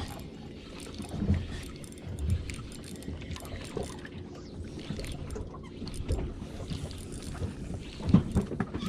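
Small boat drifting on the water: wind on the microphone over a low steady rumble, with a few soft knocks against the hull.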